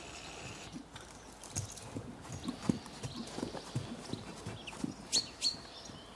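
A horse's hooves thudding on the sand arena as it moves around on the lunge, with two short sharp clicks near the end.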